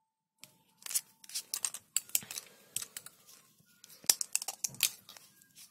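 Plastic lipstick cases and caps being handled: irregular light clicks and taps, several a second, as tubes are picked up, turned and uncapped.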